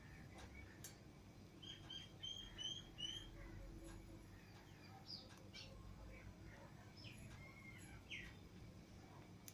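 Lovebirds chirping faintly: a quick run of five short chirps about two seconds in, then scattered single calls.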